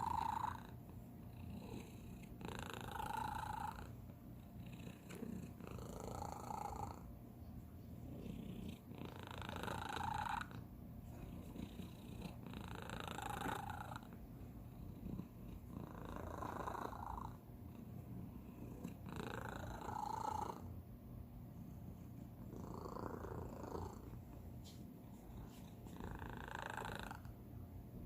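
Domestic cat purring steadily, with an unusual higher-pitched tone rising out of the purr for about a second, roughly every three seconds.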